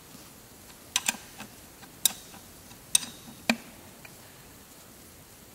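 Sharp metallic clicks and taps, about five of them spaced roughly a second apart, as a timing belt tensioner is fitted onto the engine and a wrench engages its fixing nut.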